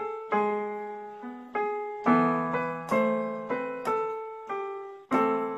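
Techno T9880i electronic keyboard played by hand: a slow melody over chords, a new note or chord about every half second, each ringing and fading, with a last chord struck near the end.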